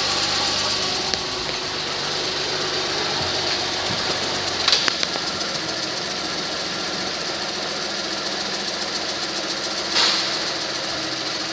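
A 2008 Ford Edge's 3.5-litre V6 running steadily at idle. Two brief knocks sound over it, one about five seconds in and one near the end.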